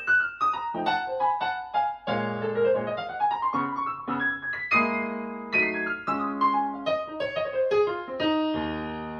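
Solo piano music played back through Wharfedale Diamond 9.0 bookshelf speakers driven by a NobSound NS-15G amplifier: quick rising and falling runs of notes, then a held chord that slowly fades near the end.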